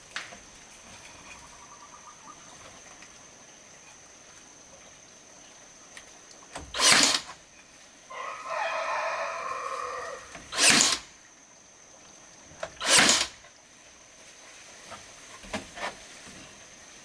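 A rooster crowing once, one long call of about two seconds near the middle. Around it come three short, loud rushing noises, a few seconds apart, which are the loudest sounds here.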